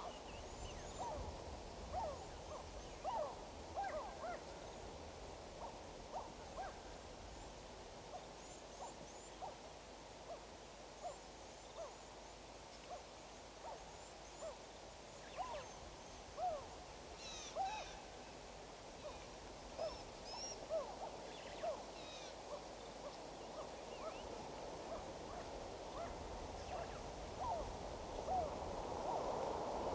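Birds calling in the bush: many short, low hooting calls, a second or so apart and overlapping from several birds, with a few higher chirps now and then over a faint steady hiss.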